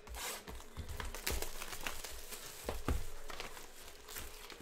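Bowman baseball card pack wrappers crinkling and tearing as packs are opened and handled, with a few dull knocks, the loudest about three seconds in.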